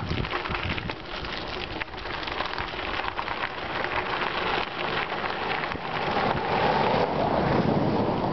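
Bicycle riding along a rough road under construction: a steady crunching rush of tyres on grit and broken pavement, with small clicks and rattles from the bike and wind on the microphone. The rush swells louder in the second half.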